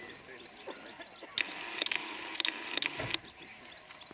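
Asian elephant breaking branches off a pulled-down tree: a burst of leaf rustling with several sharp cracks of snapping wood beginning about a second and a half in, ending with a low thump near three seconds.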